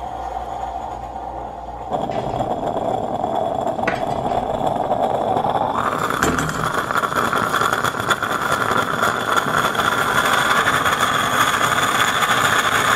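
Stainless-steel stovetop moka pot brewing: a steady hiss and sputter as coffee is forced up through the spout. It starts about two seconds in and turns louder and sharper about six seconds in.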